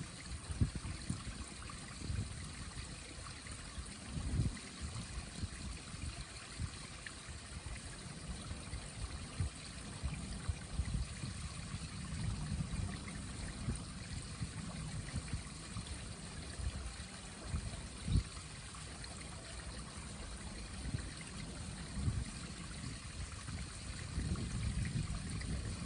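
Mountain stream trickling and gurgling as it runs under and between ice, a steady rush. Irregular low thumps on the microphone sound beneath it, the strongest about a second in and again near 18 seconds.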